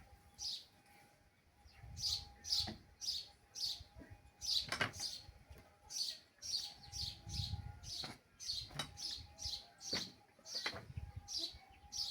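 Young chicks peeping over and over, short high peeps that fall in pitch, about two a second, with a few light knocks among them.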